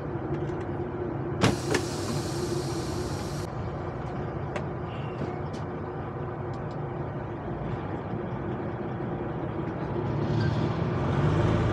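Semi truck's diesel engine idling, heard inside the cab. About a second and a half in, a sharp click is followed by a two-second hiss of air, typical of the air parking brakes being released. Near the end the engine note grows louder as the truck starts to pull away.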